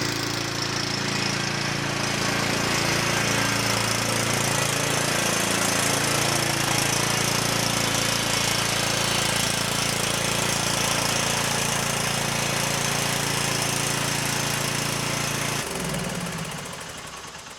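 Cub Cadet XT1 riding mower engine running steadily, then shut off near the end and winding down.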